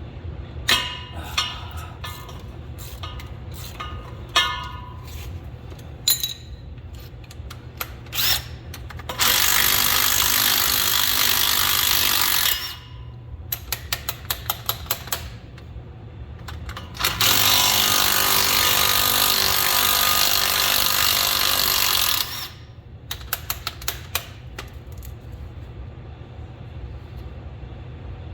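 Power impact wrench running in two long bursts, about 3.5 and 5 seconds, spinning out the bolts holding an SM420 transmission. Between the bursts there are sharp metal clinks of tools and sockets and a short run of quick ticks.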